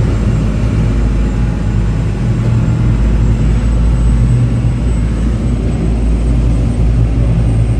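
Motorboat running steadily at speed through choppy sea: a constant engine hum under a loud, fluttering rumble of wind and water.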